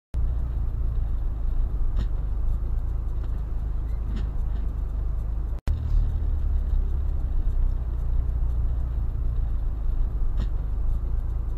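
Steady low road and engine rumble heard from inside a moving car's cabin on a wet road, with a few faint clicks; the sound drops out for an instant a little over halfway.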